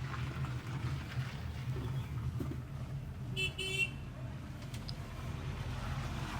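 A vehicle horn toots twice in quick succession about three and a half seconds in, over a steady low rumble.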